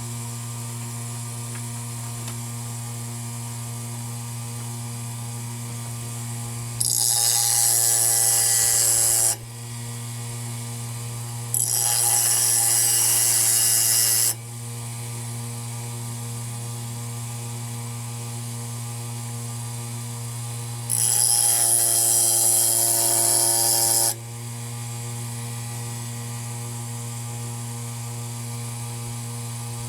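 An electric sanding machine's motor runs steadily with a hum, and three times the metal chainsaw muffler's mounting face is pressed against the abrasive, giving loud stretches of grinding of about three seconds each as it is ground flat.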